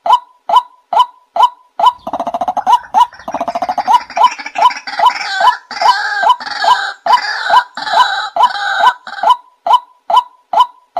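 White-breasted waterhen calling: a steady run of short, clipped notes about twice a second. From about two seconds in, harsher, rattling calls overlap them, and they drop away near the end, leaving the single repeated note.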